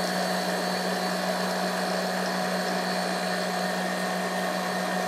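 Kenwood Titanium Chef Patissier XL stand mixer running steadily at medium speed, its whisk whipping cream to a half-stiff stage.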